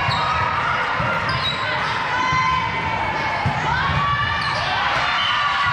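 Volleyball rally in a large echoing gym: the ball thumping off players' arms, with players calling out and a crowd chattering in the background.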